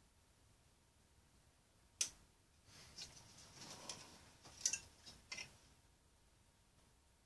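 Handling noise from a plastic 92 mm Sunon PMD computer fan being picked up and turned over in the hands: a sharp click about two seconds in, then a few seconds of soft rubbing with several more clicks and knocks.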